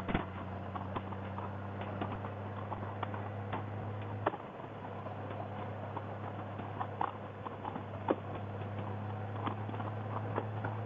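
Motorcycle engine idling with a steady low hum that dips briefly about four seconds in and then comes back, with scattered light, irregular ticks and clicks over it.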